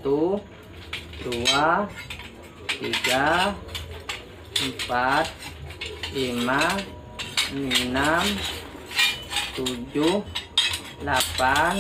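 Small steel golok blades clinking and scraping against each other as they are handled one at a time from a stack. A man's low voice murmurs briefly about every second and a half, counting them under his breath.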